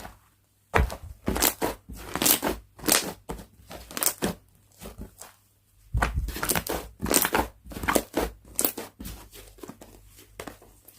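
Slime being squished, stretched and folded by hand, giving a run of sharp crackling pops as air bubbles burst, with a short pause near the middle.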